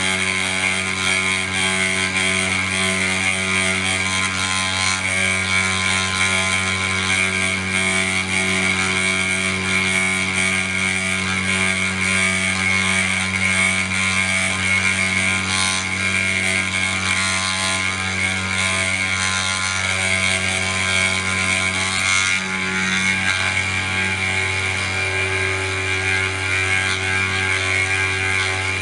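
Snapmaker 3-in-1 machine's CNC spindle motor running steadily while carving, a constant high whine over a low hum, with a few faint clicks.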